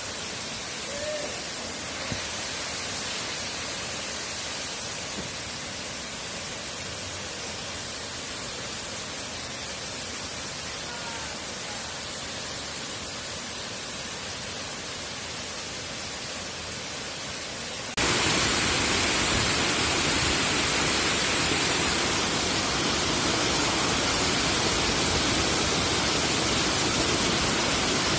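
Waterfall: a steady rush of falling water that jumps suddenly to a much louder, nearer rush about eighteen seconds in.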